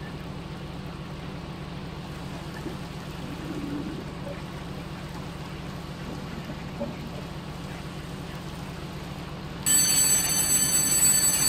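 Stockholm metro CX train running steadily with a low pulsing rumble. About ten seconds in, a much louder metallic squeal from the train's running gear sets in, made of several high shrill tones at once.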